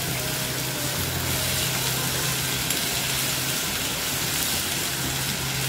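Chopped onion, capsicum and grated carrot sizzling steadily in hot oil in a pan as a tempering is fried, with a low steady hum underneath.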